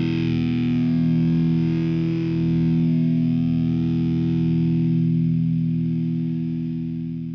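Music: a sustained distorted electric guitar chord ringing out, slowly fading near the end.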